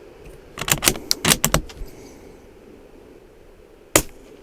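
Bolt of a suppressed bolt-action .22LR rifle being cycled: a quick run of metallic clicks about a second in. Near the end comes one sharp suppressed shot, with steady wind noise underneath throughout.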